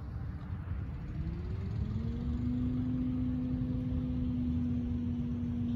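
A motor engine running nearby over low wind rumble. Its pitch rises over about a second, then holds steady and gets a little louder.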